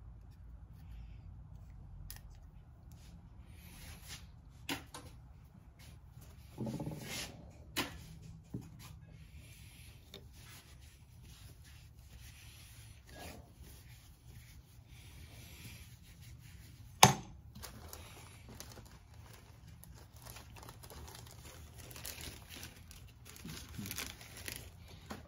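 Hands handling and cleaning a small metal part at a workbench: a cotton shop rag rubbing, rustling and crinkling, with scattered light clicks and taps. One sharp knock about 17 seconds in is the loudest sound, and a low steady hum runs underneath.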